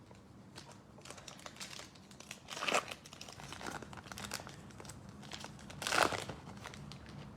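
Foil trading-card pack wrapper being crinkled and torn open, with two louder rips, one under three seconds in and one about six seconds in.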